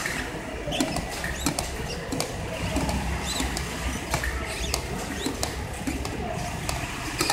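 Irregular small clicks and scratching as hands grip and turn the stiff adjustment knob of a pneumatic air pressure regulator, over a low steady hum.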